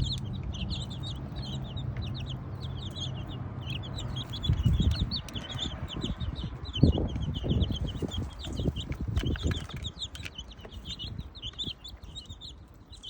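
A flock of young chicks peeping constantly in many short, high chirps. From about four seconds in there are scattered knocks and thumps, which ease off after about ten seconds.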